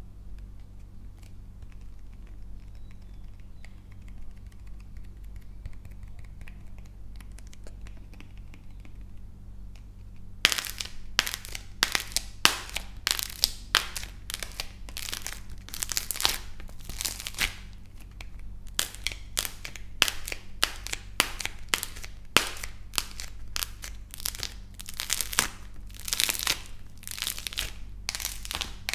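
Dried clay cracking and crumbling under pressing fingers. After about ten seconds of faint handling, a dense, irregular run of sharp crackles and crunches starts and goes on to the end.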